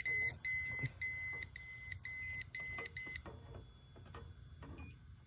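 Electronic refrigerant leak detector beeping rapidly in alarm, about two high-pitched beeps a second: it has sniffed an R22 leak at the suction valve. The beeping stops about three seconds in.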